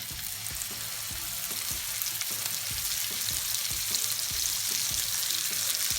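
Steak sizzling as it fries in hot butter with garlic and pepper in a pan: a steady hiss full of small crackles, growing slightly louder.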